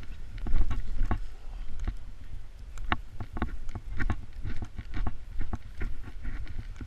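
Footsteps on thin snow over leaf litter and twigs, about two steps a second, with a low rumble on the body-worn microphone.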